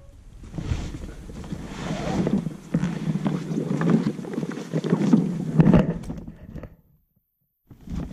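Heavy vinyl rooftop-tent travel cover rustling and flapping as it is dragged off the tent by hand, with scattered knocks of handling, in uneven bursts; it cuts off suddenly about seven seconds in.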